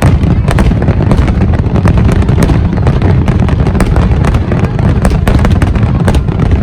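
Fireworks display at full barrage: many rapid cracks and pops over a continuous heavy low rumble of booms.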